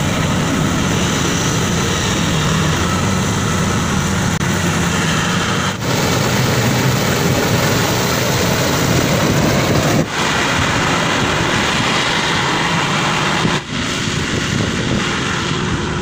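Maxxi Bimo Xtreme 2.0 combine harvester running under load while harvesting rice: a steady, loud engine and threshing drone. It drops out briefly three times, about six, ten and fourteen seconds in.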